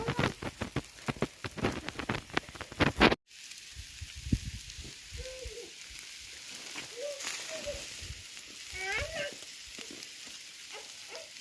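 Lamb kebab meat sizzling and crackling over an open cooking fire: a fast run of sharp pops for about the first three seconds, then a sudden cut to a softer, steady sizzle with a few faint short calls.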